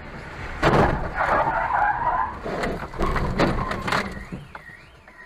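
A vehicle skidding on tarmac, with several sharp knocks of a collision during the skid. A warbling tone starts near the end.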